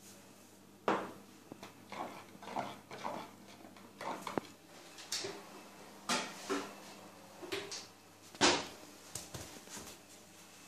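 A string of irregular kitchen clunks, clicks and knocks as an oven door is opened and a metal roasting pan is taken out and set down on a glass-ceramic hob. The loudest knock comes near the end.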